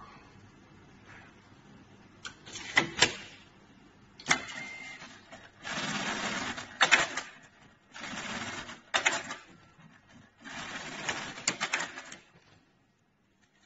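Automatic computerized pattern sewing machine for shoe-tongue labels, stitching in four short runs of a second or two each, with sharp clacks in and between the runs.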